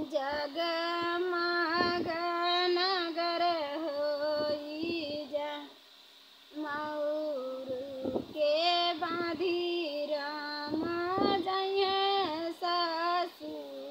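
A woman singing a North Indian folk wedding song (vivah geet for a son's wedding) unaccompanied, in a high voice with held, wavering notes. She pauses for breath about six seconds in, then sings on.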